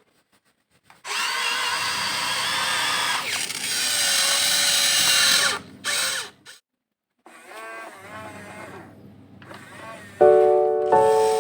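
Electric motors and gears of a Huina 1592 RC excavator, whining in several stretches with short silent gaps, the pitch wavering up and down as the arm works. A few notes of background music start near the end.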